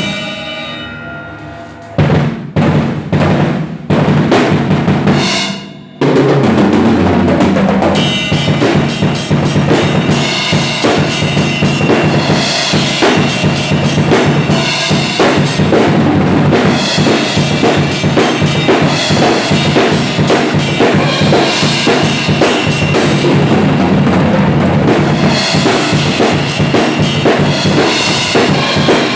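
A drum kit being played: a ringing opening, a few separate hits, then fast, continuous drumming from about six seconds in.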